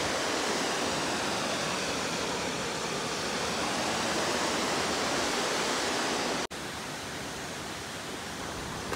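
Steady rush of a mountain stream's fast-flowing water. It cuts out for an instant about six and a half seconds in, then carries on slightly quieter.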